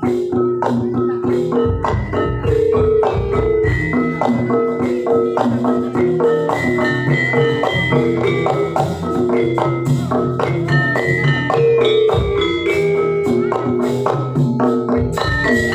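Gamelan music for a jaranan dance: metal-keyed percussion plays a dense, fast run of ringing melodic notes over sharp drum strokes, with deep low notes coming and going.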